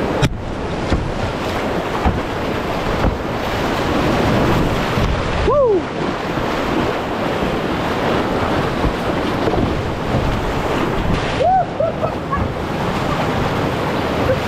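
Loud, steady rushing of whitewater in a river rapid, with wind buffeting the microphone. A sharp knock comes just after the start, and two brief squeaky gliding tones come partway through and near the end.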